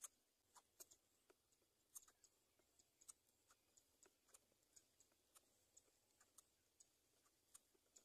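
Near silence with faint, irregular small clicks and ticks, a few each second.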